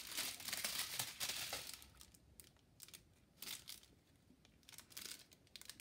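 Small plastic bags of diamond painting drills crinkling as they are handled and counted. The rustling is busiest in the first two seconds, then comes as a few brief crinkles.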